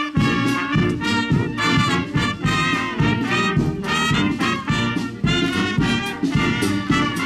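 Brass band playing a lively tune with a steady beat, trumpets and trombones to the fore.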